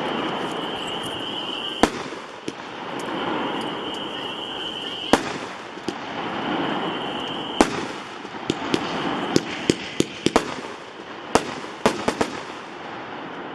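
A 16-shot 200-gram consumer repeater cake firing: single sharp reports a few seconds apart with rushing swells between, then a quick flurry of sharp pops and cracks near the end as the last shots break.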